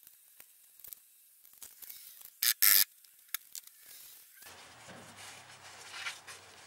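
Workshop handling noises: scattered small clicks and rustles, with two short, loud hissing rustles about two and a half seconds in, then a faint low hum from about halfway.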